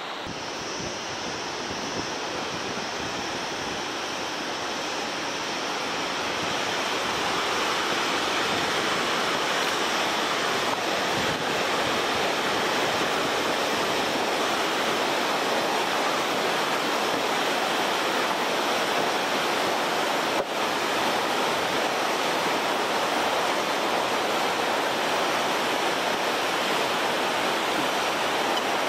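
Fast mountain river rushing over rapids below a suspension bridge, a steady roar of whitewater that grows louder over the first several seconds and then holds steady.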